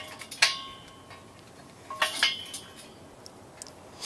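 Metal hardware clinking against the steel leg of a compost tumbler stand as a bracket and bolt are fitted: a few sharp clinks with a short metallic ring, one about half a second in and two close together about two seconds in.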